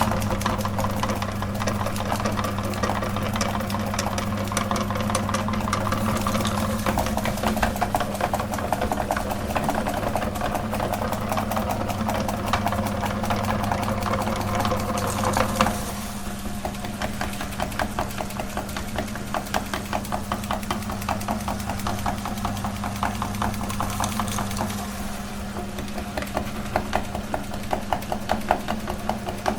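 Electric meat grinder switched on and running, its motor humming steadily under a dense rattle as it grinds jelly candy. The sound drops slightly about sixteen seconds in and again near twenty-five seconds.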